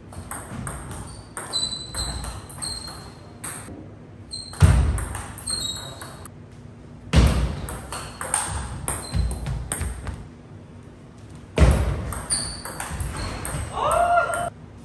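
Table tennis rally: the celluloid-style plastic ball clicking quickly off paddles and the table, with short high squeaks of shoes on the wooden floor. Three much louder hits or thuds land about a third of the way in, halfway and near three quarters, and a brief pitched cry comes near the end.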